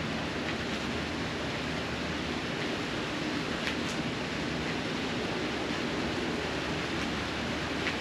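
Steady hiss of rain falling on a corrugated metal roof, with a few faint taps.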